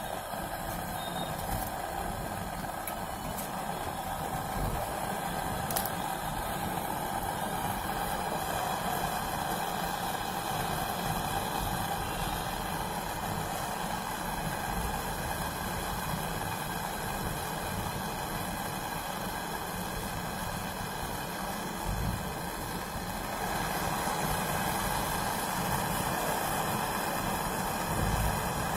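Small refrigeration compressor running steadily, the kind used to push flushing solvent through a refrigerator's coils. It gets a little louder about two-thirds of the way through.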